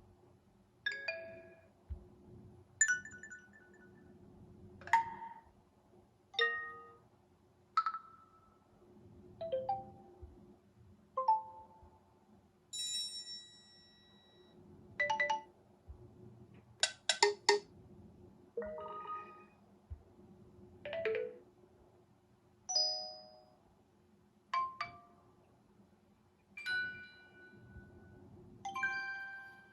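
A run of short OnePlus 6T stock alert chimes played one after another, about sixteen of them, each a different brief melodic tone lasting under a second, one every second or two, over a faint steady hum.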